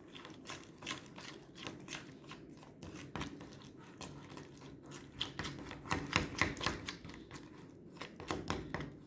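A utensil stirring glue and water colour in a container: irregular scraping and tapping clicks against the container's sides, several a second, a little louder and busier about two thirds of the way through.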